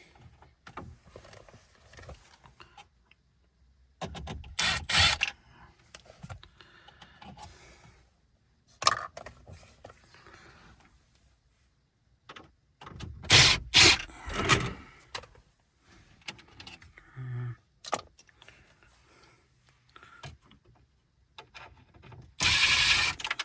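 Scattered clicks, knocks and rattles of a T20 tool and plastic dashboard trim as a car radio is unscrewed and pried out, with a louder rasping burst near the end.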